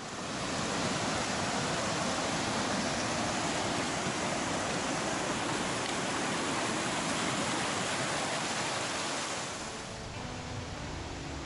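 Fast mountain river rushing over rocks, a steady wash of water noise. It drops down and grows quieter about ten seconds in.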